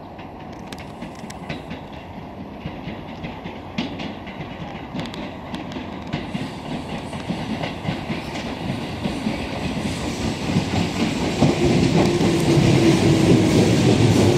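Tobu 20000-series electric commuter train pulling into a station. Its wheels click sharply over rail joints and points, and the rumble grows steadily louder as it nears. A low steady whine joins about eleven seconds in as the cars run past alongside.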